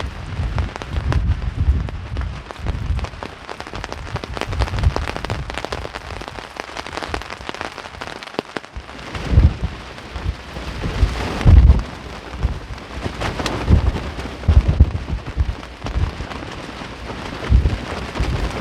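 Heavy rain pattering in a dense run of drops, with strong wind gusts buffeting the microphone in low rumbles that come and go, loudest in the second half.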